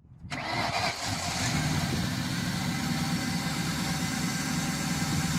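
Car engine starting up right after a battery replacement, coming in suddenly and settling into a steady idle: the new battery has cured the no-crank, no-start fault.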